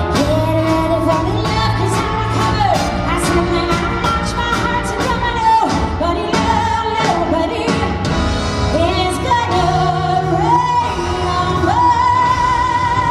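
A woman singing live into a microphone, backed by a band with drums and cymbals. She holds long notes with vibrato, the longest near the end.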